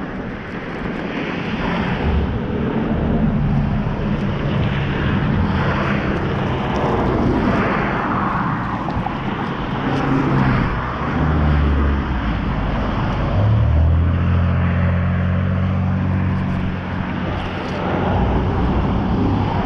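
Road traffic passing close by: a steady rush of tyre noise with a vehicle engine's low drone, the drone strongest and most sustained about two-thirds of the way in.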